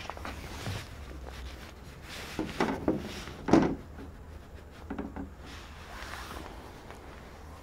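Handling noises on a wooden crib: a few soft knocks and rubs, the loudest about three and a half seconds in.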